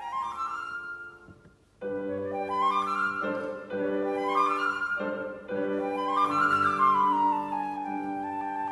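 Flute playing quick rising runs, nightingale-like, over sustained piano chords. There is a brief pause about a second and a half in, then three more upward runs. A falling line near the end settles on a held high flute note.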